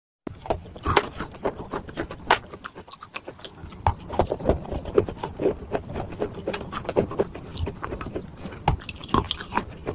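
Close-miked biting and chewing of wet chalk: a dense run of irregular crunches and crackles, with several sharper bites standing out.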